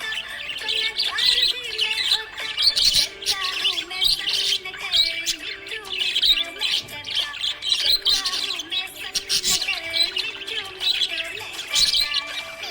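Budgerigar chirping and chattering continuously in quick, busy bursts, with short squawks mixed in: the warbling chatter of a contented budgie.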